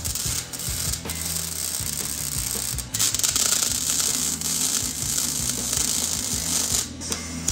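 Arc welding on a steel fence picket: a steady hissing crackle from the arc that breaks off briefly about three seconds in and again near the end, over background music with a bass line.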